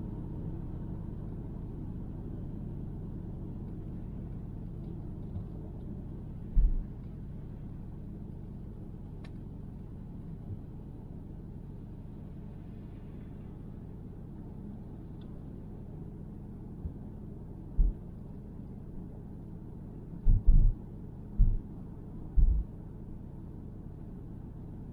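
Steady low rumble of a car driving on a snowy highway, heard from inside the cabin. Several dull thumps cut through it, one about a third of the way in and a cluster in the last few seconds.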